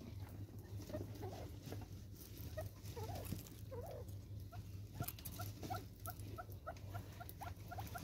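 Gamebirds calling: a few short curving notes, then from about halfway a steady series of short clucking notes, about three a second, over a low steady hum and scattered sharp clicks.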